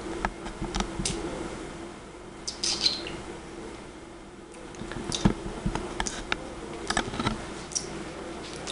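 Scattered faint clicks and smacks of a mouth chewing dry bread, over a steady low hum.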